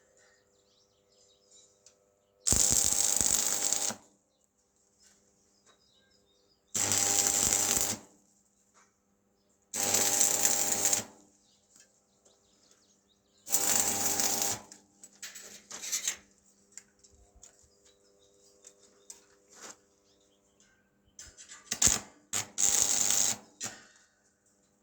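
A handheld power tool running in four short bursts of about a second each, a few seconds apart, on metal. Then come scattered clicks and taps, and two or three quicker bursts near the end.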